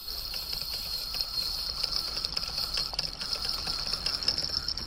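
Spinning fishing reel being cranked steadily, a fast even whirring as a hooked fish is reeled in.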